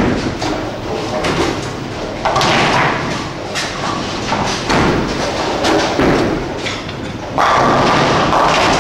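Ten-pin bowling ball thudding onto the lane as it is released, rolling, and crashing into the pins about two seconds later. Further thuds and pin clatter from other lanes fill the hall, with another loud clatter near the end.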